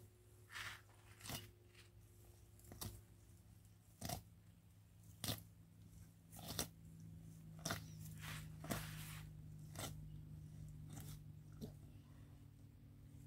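Komodo dragons biting and tearing at a buffalo carcass: short, sharp crunches and rips of flesh and hide, irregular, about one a second, over a faint steady low hum.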